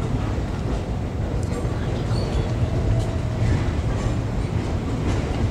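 Diesel locomotive and its train of cars shunting, a steady low rumble.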